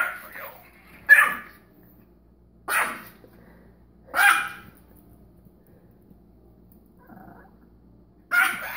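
Yorkshire terrier barking: single sharp barks, about three, spaced a second or more apart, at a skeleton candy bowl that has frightened it.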